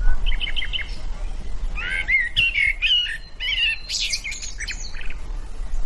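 A songbird singing: a quick run of short chirps, then a longer varied phrase of warbling, rising and falling whistled notes, over a steady low rumble.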